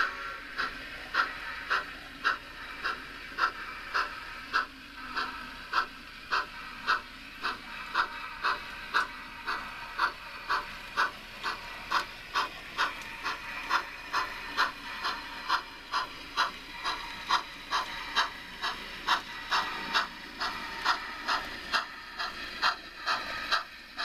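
Model of Yosemite Valley Railway 1922 Baldwin 2-6-0 steam locomotive No. 29, with onboard sound, running with steady, even exhaust chuffs over a constant steam hiss.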